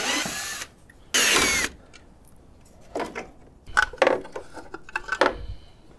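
Cordless drill/driver running in two short bursts, the second and louder one about a second in with a sweeping whine, as it backs out the screws holding the parking lamp assembly. After that come light plastic clicks and rubbing as the parking lamp assembly is worked out of the grille by hand.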